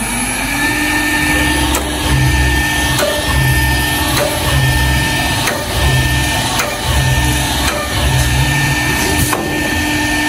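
Multi-function CNC panel drilling and milling machine cutting into a melamine-faced board: a steady spindle whine that rises briefly at the start and then holds, under a low rumble that pulses on and off, with scattered sharp clicks.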